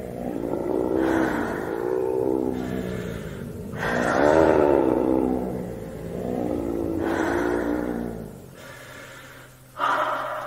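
Dark ambient outro of a black/death metal demo: slow swells of low, pitch-bending tones in phrases a second or two long, with no drums or guitar riffing. A brighter, harsher layer comes in suddenly near the end.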